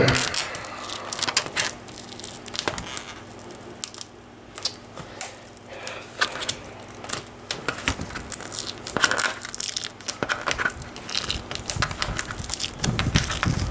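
Tape being slowly peeled off a Chromebook's plastic casing, with irregular small crackles and tearing as the adhesive and paper lift away; a louder bump of handling near the end.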